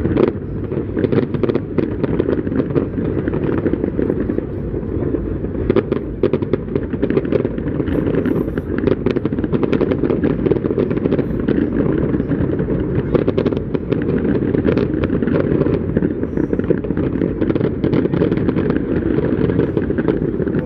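Fireworks bursting one after another, many sharp bangs and crackles close together over a steady low rumble.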